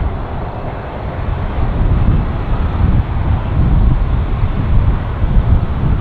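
Jet airliner engines running loudly: a deep, fluttering rumble with a hiss above it.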